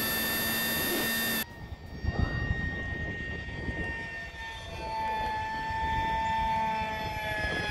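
Radio-controlled Su-35 model jet flying overhead: its electric ducted fans give a steady high whine, with a second, lower whine swelling louder around the middle, over gusts of wind on the microphone. About a second and a half in, a louder sound cuts off abruptly.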